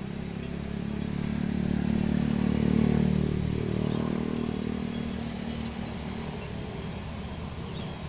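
A motor vehicle passing by: its engine sound grows louder, peaks about three seconds in, then fades away.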